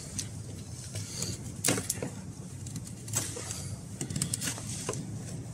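A Morakniv knife cutting a notch into a bark-covered wooden pole: a string of irregular sharp knife-on-wood clicks and cracks as the blade bites and pries out wood, over a steady low rumble in the background.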